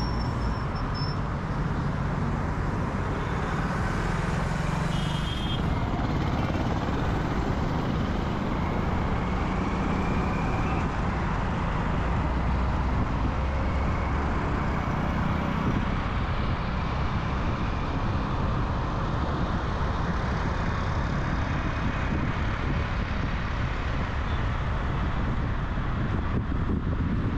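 Steady road and traffic noise of a car driving through city traffic.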